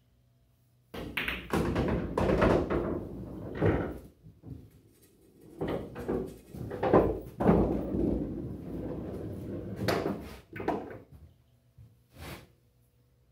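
A pool shot on a coin-operated bar-box table: the cue strikes the ball and the balls clack together. A pocketed ball then rumbles and knocks through the table's internal ball-return channel. The thuds and rolling come in two long spells and end with a short knock.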